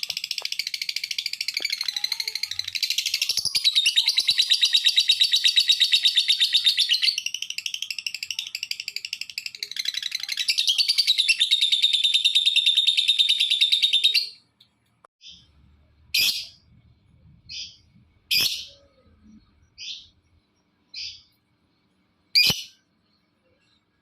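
Lovebird singing a long, fast chattering trill for about fourteen seconds, then breaking off into a handful of short single chirps. This is the continuous 'gacor' song used as lure audio to set other lovebirds singing.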